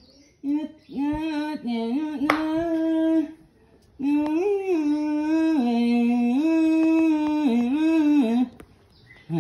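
A single voice singing a slow melody of held notes that step up and down, in two phrases with a short break between them.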